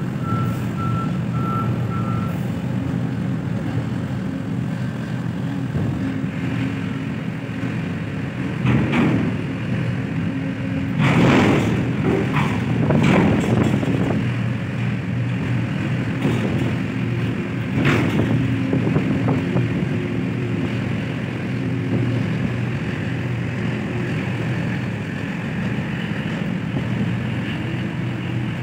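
Steady machinery drone of cargo-port equipment (container crane and ship machinery), with a warning beeper pulsing in the first couple of seconds, then stopping. A few louder knocks stand out in the middle.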